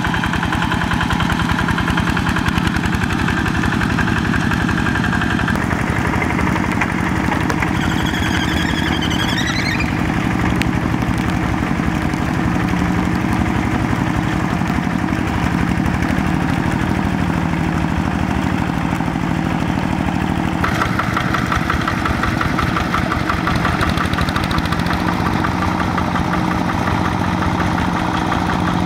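Single-cylinder diesel engine of a Quick G1000 two-wheel hand tractor chugging steadily under load as it pulls through a flooded rice paddy. The tone shifts abruptly twice.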